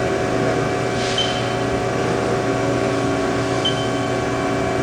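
Haas ST-10 CNC lathe running with a steady hum of several tones while its Z axis is jogged, with two short high-pitched whines, about a second in and again near the end.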